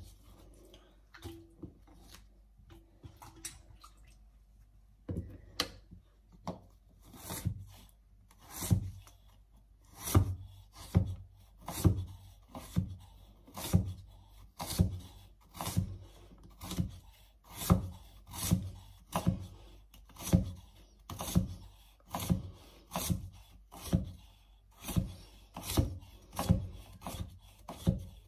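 Knife slicing cassava (tapioca) root on a cutting board: a steady series of short chops, about one a second, starting about five seconds in.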